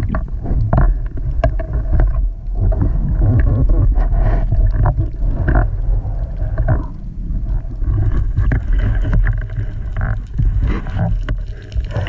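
Underwater sound picked up through a camera's waterproof housing: a steady low rumble of moving water with many scattered clicks and knocks from the diver handling the speargun and its line.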